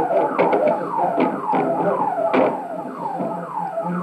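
Police sirens sounding in fast repeated falling sweeps, about two a second, several overlapping, with a few short sharp clicks in between.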